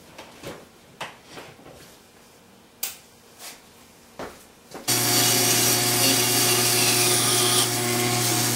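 A few faint clicks and knocks of shop handling, then about five seconds in a woodworking power tool switches on abruptly and runs steadily with a loud hum and a hiss.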